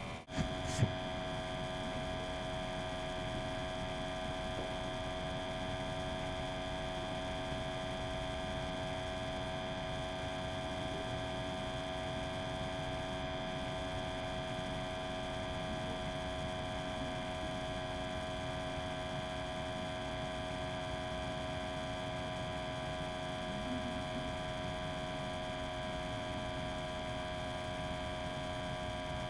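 Steady electrical hum made of several constant tones over a low background noise, with one short knock just under a second in.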